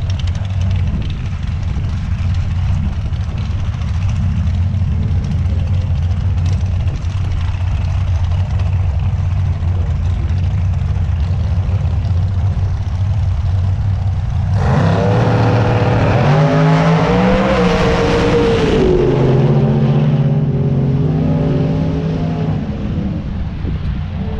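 A vehicle engine idles with a steady low rumble. About fifteen seconds in, a car engine revs up loudly, rising in pitch for about three seconds, then falls away and settles to a lower steady note.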